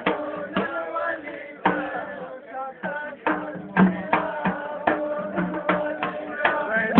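Pashto attan dance music: a drum beating strokes about twice a second under a melody of held notes.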